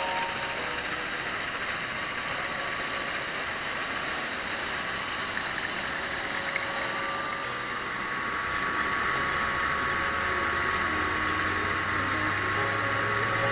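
SK-5 Niva combine harvester running under load while cutting and threshing wheat: steady engine and threshing-machinery noise. From about halfway it gets a little louder, with a steady whine and a deeper engine hum.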